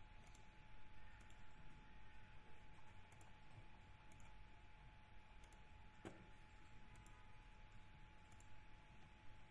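Near silence: faint room tone with a steady faint hum and light, irregular high ticks, and a single sharp click about six seconds in.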